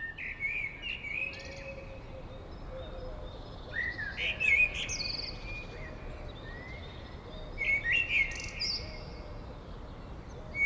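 Wild birds calling: bouts of overlapping chirps and short whistled phrases, with several clusters of calls and the loudest about halfway through, over steady outdoor background noise.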